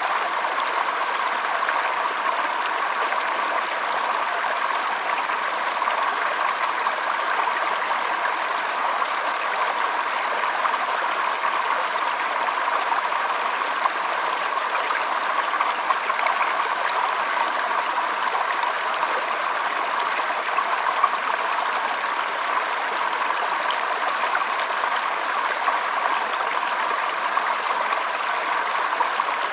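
Flowing water, a steady, unbroken rush.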